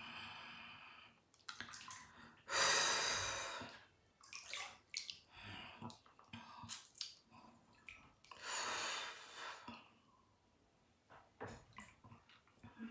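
Hot bath water sloshing and splashing in a bathtub as a person moves in it, with two longer splashes about 2.5 and 8.5 seconds in and small drips between.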